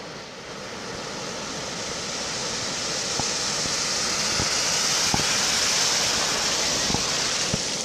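Pickup truck driving through flood water over the road, its tyres throwing up spray: a splashing water hiss that swells as the truck comes near and passes, then fades near the end.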